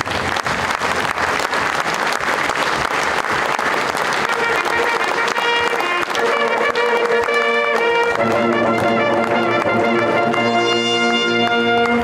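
Audience applauding, then a brass fanfare of hunting horns comes in about four seconds in with held chords that grow fuller near the end.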